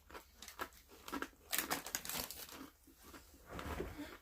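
Irregular crinkling and crackling of a plastic snack chip bag being handled, densest about one and a half to two seconds in.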